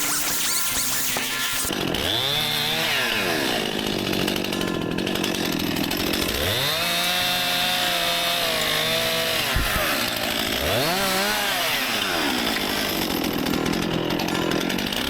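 Stihl MS261 C-M two-stroke chainsaw cutting into a tree, revved to full throttle three times, with the longest cut in the middle. It drops back to a low idle between the cuts.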